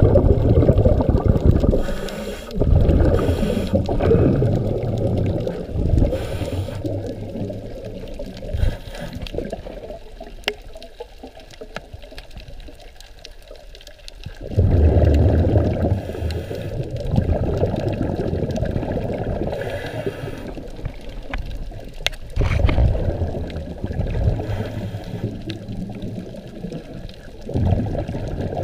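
Muffled underwater water noise through a GoPro housing: low rushing and sloshing that swells and fades every few seconds, with a few faint clicks.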